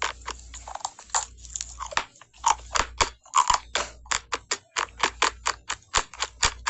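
Crunchy food being bitten and chewed: sharp, crisp crunches at about four a second in an uneven rhythm.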